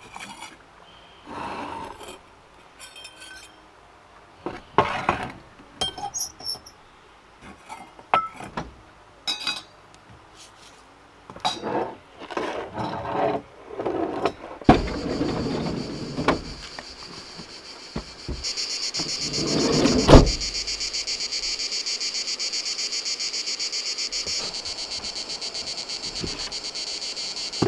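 Scattered knocks and handling clatter for the first half, then a steady high-pitched insect chorus sets in about halfway through and carries on. A single loud thump lands over the chorus a few seconds after it begins.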